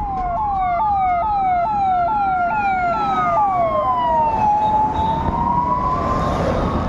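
Two emergency-vehicle sirens sounding together, from an ambulance and its police escort. One sweeps down fast, about two to three times a second, and stops about four seconds in. The other is a slow wail that rises, falls and rises again, and road noise builds under it near the end.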